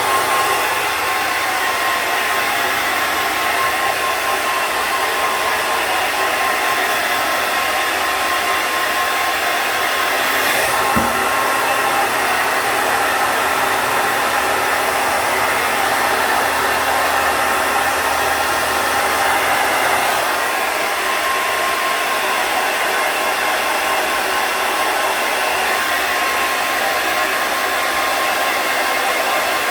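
Hand-held hair dryer blowing steadily while a puppy's fur is dried: an even rushing hiss with a constant motor whine. There is a brief knock about eleven seconds in, and the sound shifts slightly about twenty seconds in.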